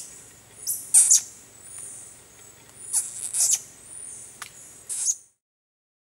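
Spectral tarsier calling: very high, shrill squeaks and whistles in clusters about once a second, several of them sweeping steeply down in pitch.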